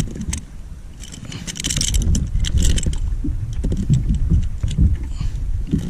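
Small gear clinking and rattling in quick, irregular clicks, densest a couple of seconds in, as fishing gear is handled on the kayak, over a low rumble of wind and handling noise on the microphone.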